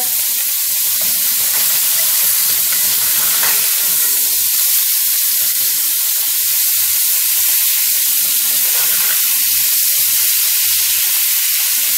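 Catfish fillets sizzling steadily in butter in a hot cast iron skillet as they blacken.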